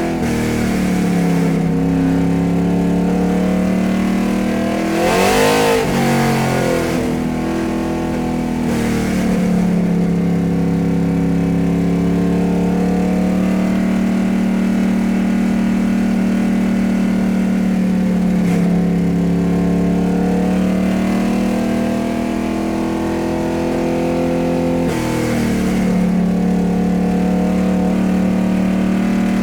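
Car engine running steadily, its pitch sliding up and down as it revs. About five seconds in it revs up sharply and drops straight back, and it rises again briefly near the end.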